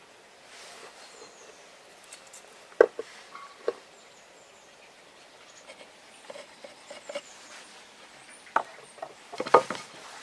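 Split ash boards being handled on a wooden bench: a few scattered sharp wooden knocks and clicks, the loudest about three seconds in, with a cluster of clatter near the end as a board is lifted.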